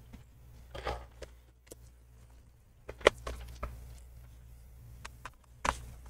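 Light handling clicks and taps of a small screwdriver and gloved hands against an aluminium laptop base, with a sharp click about three seconds in and another near the end, and a short rustle about a second in.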